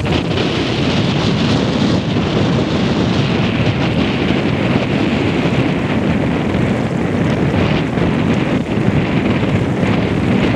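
Strong sea wind blowing across the microphone: a loud, steady rumbling rush with no breaks.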